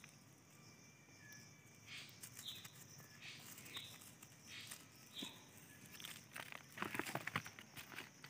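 Faint scratching and crackling of a hand digging in dry, gravelly soil, with denser crunches near the end. A bird chirps briefly several times, about once a second.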